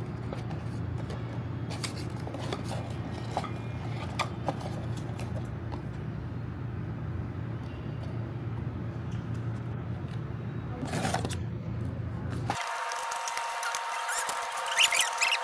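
Toy packaging being handled and opened by hand: scattered light clicks and scrapes over a steady low hum. About twelve and a half seconds in the sound changes abruptly to a thinner recording with a steady high tone and a few short squeaks.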